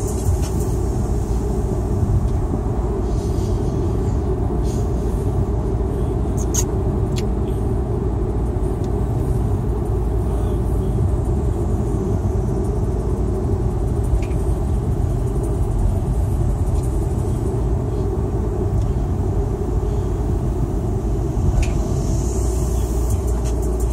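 Car driving at steady speed on a country road, heard from inside the cabin: a constant low rumble of tyres and engine.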